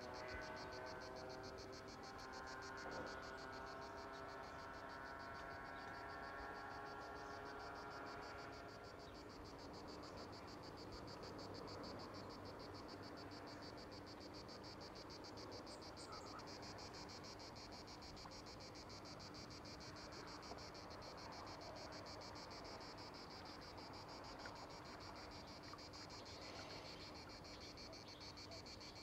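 Insects chirring steadily outdoors, a fast high-pitched pulsing that carries on throughout, with a faint droning tone that fades away in the first several seconds.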